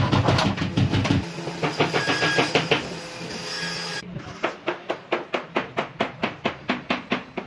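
Hand saw rasping through an MDF board in quick strokes. About four seconds in it gives way to a fast, regular run of sharp strokes, about three a second.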